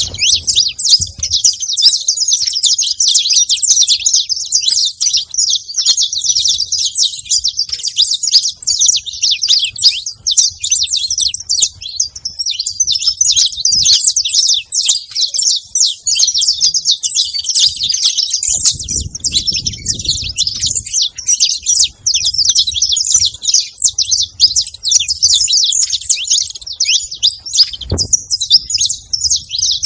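A flock of saffron finches chirping and singing all at once, a dense, unbroken mass of high overlapping chirps. A brief low rumble comes about two-thirds of the way through.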